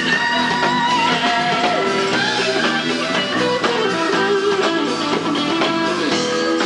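Live rhythm-and-blues band playing an instrumental passage: a Fender Stratocaster electric guitar plays lead lines that bend in pitch, over bass guitar, drums and keyboards.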